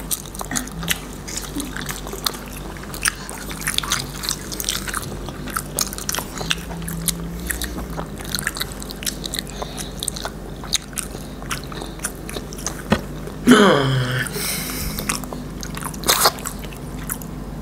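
Close-miked eating sounds: biting and wet chewing of sausages topped with nacho cheese, with many small smacks and clicks. About thirteen and a half seconds in, a short vocal sound falling in pitch stands out as the loudest moment.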